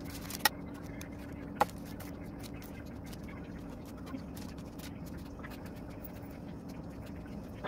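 A metal bench scraper clinks twice against a metal baking tray, with a few fainter ticks and scrapes, over a steady low hum.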